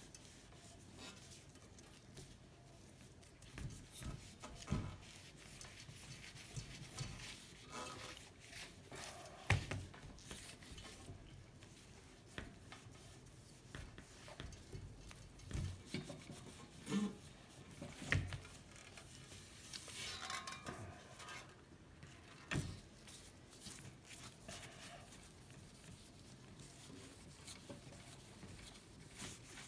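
Hand rubbing on the painted steel tubes of a bicycle frame, an irregular scrubbing and scraping with occasional light knocks and clicks, the sharpest about a third of the way in and past the middle.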